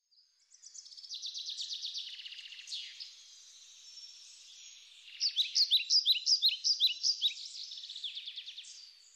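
Birds singing: fast trills and chirps, fading up at the start, easing off for a couple of seconds in the middle, then a louder run of quick repeated chirps from about five seconds in.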